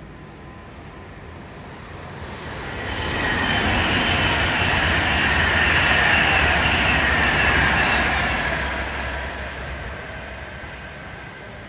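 Virgin Trains Class 390 Pendolino electric train passing through without stopping. It is a rushing rail noise with a steady high whine over it, building from about two seconds in, loudest for about four seconds, then fading away.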